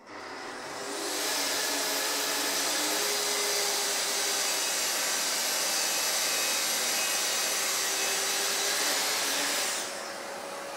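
Festool plunge-cut track saw starting up and cutting through a wooden panel along its aluminium guide rail, running steadily at full speed with a dust extractor drawing through the hose. Just before the end the saw cuts off and a quieter, steady extractor noise runs on.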